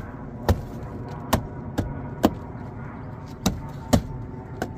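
Hand strikes on a Hyundai Veloster's door trim panel, knocking its push-pin clips home into the door: about seven sharp knocks at uneven intervals.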